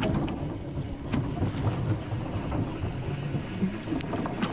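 Drift boat sliding off its trailer into the river, the hull giving a low, uneven rumble with a few sharp knocks, heard through a camera mounted on the boat.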